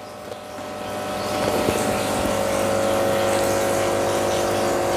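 A steady motor hum with several held tones, swelling over the first two seconds and then holding level.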